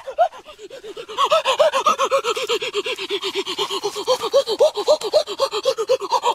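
A man's voice making rapid, repeated short yelping calls, each rising and falling in pitch, about five a second; they grow louder about a second in and keep a steady rhythm.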